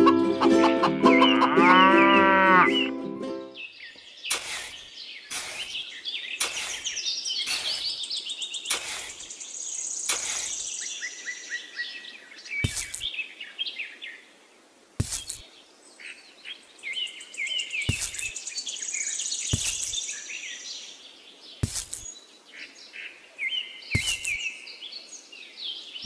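A cow moos for about three seconds. After that, birds chirp, and about a dozen sharp taps come a second or two apart, which fit tiny clay bricks being set in place.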